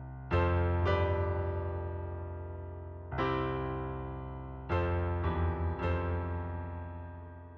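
Music: slow electric piano chords, about six of them struck one after another, each ringing on and slowly fading.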